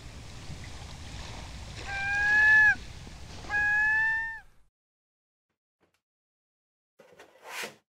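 Soft waterside ambience with two drawn-out animal calls, each about a second long and holding one pitch before dropping away at the end. Then near silence, and a short rustle near the end.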